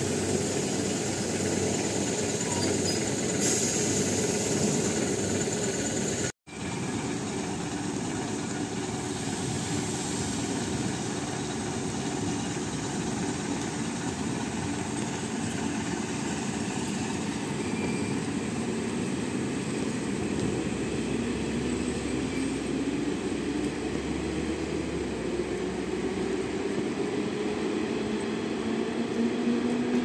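ЭТ2М electric multiple unit train running along the station track, a steady rumble of wheels and motors. A hum slowly rises in pitch over the last several seconds. The sound cuts out for an instant about six seconds in.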